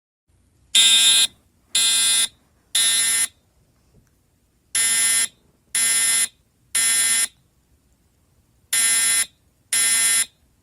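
Building fire alarm sounding the temporal-three evacuation signal: three short, loud, buzzy horn blasts about a second apart, a pause, then the same again, repeating.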